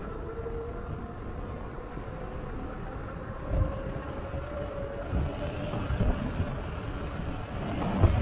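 Motorized bike ridden at speed on a paved road: steady wind rush and tyre noise with a faint whine. A few low thumps of wind buffeting come through, the loudest near the end.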